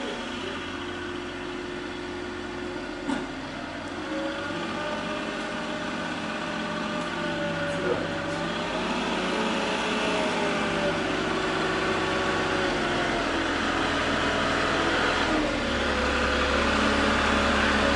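Combustion engine of a truck-mounted forklift running as it drives up to the garage with a loaded pallet, getting steadily louder as it comes closer.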